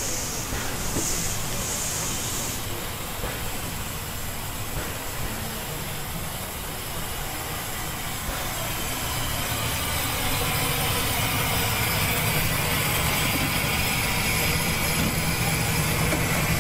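Steam traction engine running with escaping steam: a few short hisses near the start, then a louder, steady hiss over a low engine hum from about ten seconds in.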